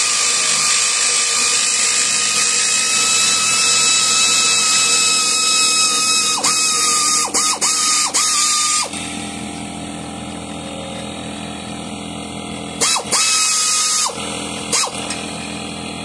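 Pneumatic air ratchet running, a steady air hiss with a motor whine, as it works on the stubborn traction-bar hardware on a leaf spring. It runs continuously for about nine seconds, stops and restarts several times in quick triggers, then fires in two more short bursts near the end.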